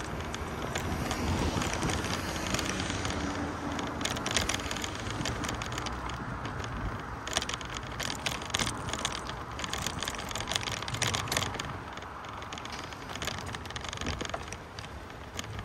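Outdoor traffic noise, a steady rush with a scatter of clicks and rattles through the middle.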